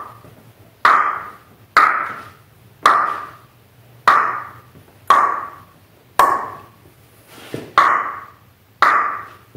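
Single hand claps, about one a second, eight or nine in all. Each clap rings on in the bare garage for about half a second. This is a clap test of the room's echo after acoustic panels were hung.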